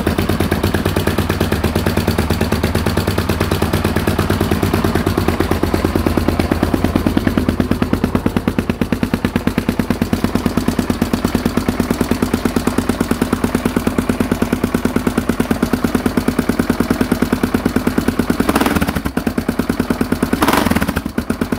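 Yamaha XT600E single-cylinder four-stroke idling with an even beat through an open Endy aftermarket silencer with its dB killer removed. Near the end there are two short throttle blips.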